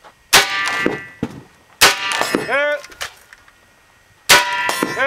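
Three rifle shots from an AK-pattern rifle, about a second and a half and then two and a half seconds apart, each followed by a ringing; after the second and third shots a ringing tone with a bending pitch comes back about half a second later, typical of a hit on a steel target at 100 yards.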